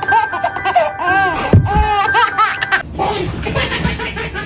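High-pitched laughter in quick repeated bursts for about three seconds, then softer.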